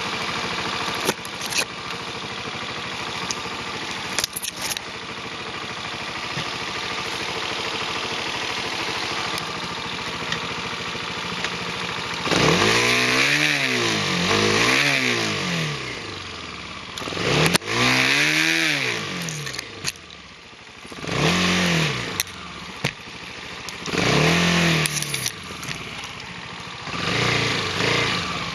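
A vehicle engine running steadily, then revved up and down in several bursts through the second half, the pitch rising and falling each time. A few short knocks come in the first few seconds.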